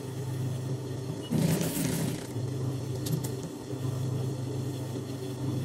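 Electric sewing machine running, its motor giving a steady low hum as fabric is fed through. A brief rustle of fabric being handled comes about a second and a half in.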